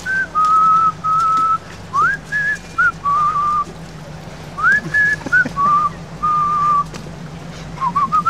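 A man whistling a tune. The same phrase comes three times, each a quick upward slide to a high note followed by two longer, lower held notes. A few short notes follow near the end.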